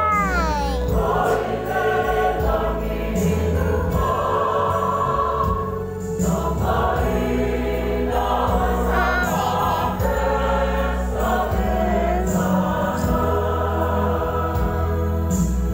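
Church congregation singing a Samoan hymn together as a choir, many voices holding long notes over a steady deep bass.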